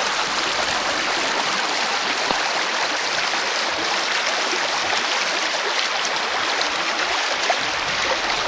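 Shallow stream running steadily over stones, close by.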